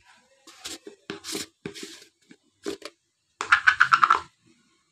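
Spatula scraping and stirring through kadhi in an iron kadai: a few separate scrapes, then a quick run of strokes about three and a half seconds in, the loudest part.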